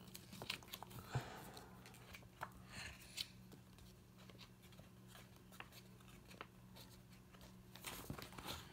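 Quiet rustles and light taps of a comic book's paper page being flipped back and forth by hand, scattered through and busier near the end, over a faint steady hum.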